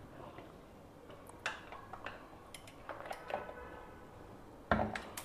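Scattered light clicks and metallic clinks from a hand-held stovetop sandwich toaster's long steel rod handles and plates as it is closed, with a louder knock near the end.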